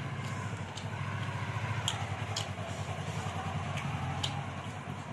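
A steady low engine rumble, with about six sharp short clicks over it from eating by hand: fingers mixing rice and mutton on a plate.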